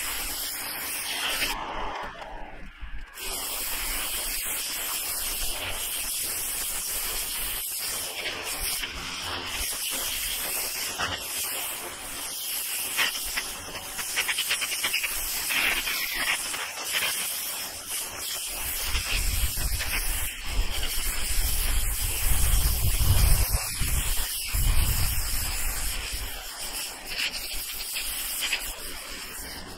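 Water jet from a Ryobi electric pressure washer's turbo nozzle hissing steadily against asphalt roof shingles as moss is blasted off, breaking off briefly about two seconds in. A low rumble joins in from about two-thirds of the way through.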